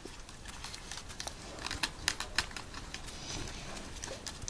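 Light, scattered clicks and scrapes of cardboard stick puppets being slid and handled on a homemade paper toy theatre, with a few taps close together about two seconds in.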